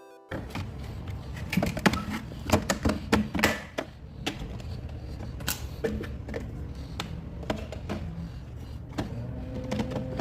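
Handling noise from window screen work: a run of sharp clicks, knocks and scraping over a steady rough background, most frequent in the first few seconds.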